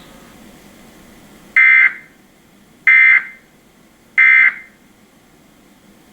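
Emergency Alert System end-of-message code: three short, loud bursts of buzzing digital data tones, about a second and a third apart. They signal the end of the alert message.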